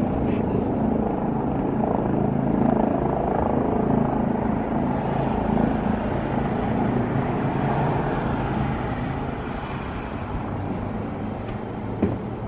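Helicopter out of sight, a steady rotor and engine noise with a low hum, easing off a little after about eight seconds. A short click sounds near the end.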